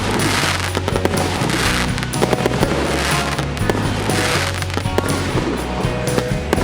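A 100-shot, 1.2-inch consumer firework cake firing shot after shot, a quick run of pops and bangs with swells of crackle, over background music with a steady bass line.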